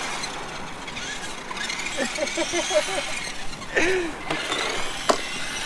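Small electric motor of a toy RC car whining faintly and unevenly, rising and falling in pitch, as the car's wheels spin in the air. A man laughs about two seconds in, and there is a single sharp click near the end.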